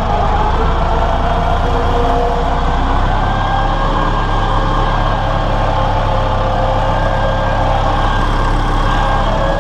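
Massey Ferguson 168 tractor's four-cylinder diesel engine running steadily while driving the tanker's water pump through the PTO. The engine note changes about three seconds in.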